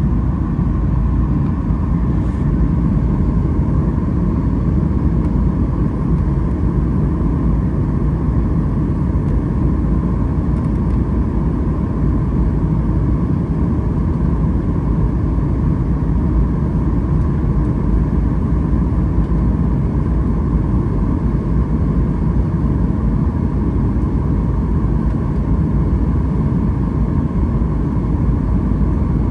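Steady cabin roar of a Boeing 737 MAX 8: its CFM LEAP-1B engines and the rush of airflow past the fuselage, heard inside the passenger cabin, even and unchanging throughout.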